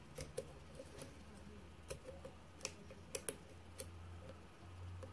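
A steel hook pick clicking against the pin tumblers of a brass mortise lock cylinder held under tension: light, irregular clicks, about eight in all, over a faint low hum. The picker is struggling to get the pick under the security pins.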